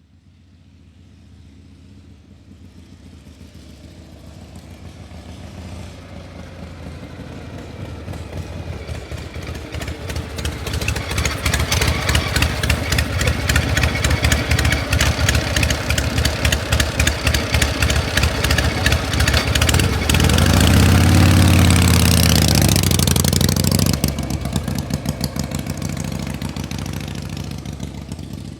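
A motor vehicle's engine running with a rapid pulsing beat, growing steadily louder over the first dozen seconds. It revs higher and is loudest from about 20 to 24 seconds, then drops back and eases down.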